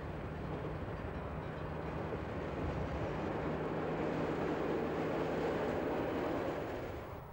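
SBB 'Crocodile' electric locomotive approaching and passing on the track, a rumble of wheels and running gear with a faint steady hum, growing louder as it nears and cutting off suddenly near the end.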